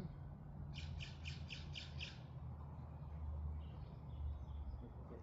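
A bird calling a quick run of about six harsh, evenly spaced notes about a second in, with fainter high chatter later, over a steady low hum.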